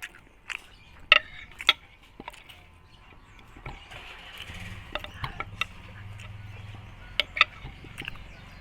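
A person eating chicken curry: scattered sharp clicks and clacks of the meal, several of them loud. A low steady hum comes in about halfway.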